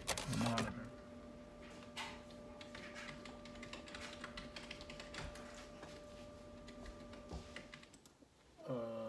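Computer keyboard keys and mouse buttons clicking, scattered and irregular, over a faint steady hum; a louder click right at the start.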